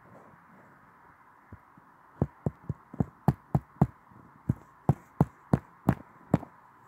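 A quick, uneven series of sharp taps, about three a second, starting about two seconds in, over a faint steady hiss.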